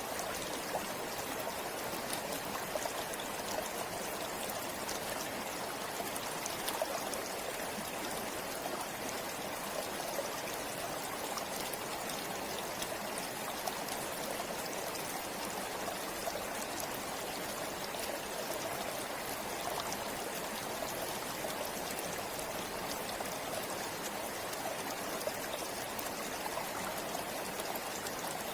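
Forest river or stream flowing steadily over rocks, a constant rush of water with fine splashing and trickling.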